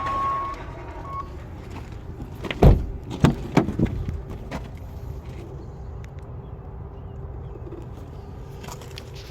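A car's electronic chime beeping in short steady tones, stopping about a second in, then four loud clunks in quick succession. After them a faint steady hum is left.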